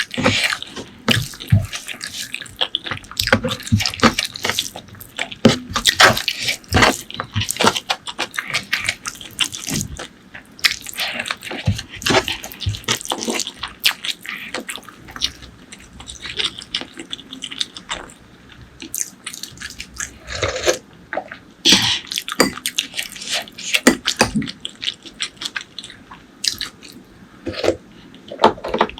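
Close-miked wet chewing and lip-smacking while eating spicy pork leg curry with rice: a dense, irregular run of short wet clicks and squelches.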